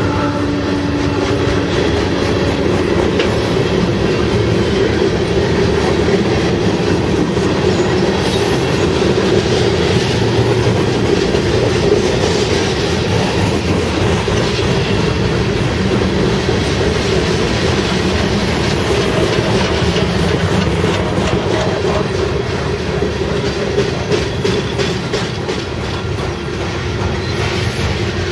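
Freight train's cars rolling past, a steady rumble of steel wheels on rail with clickety-clack over the rail joints. A train horn's held note dies away about a second in.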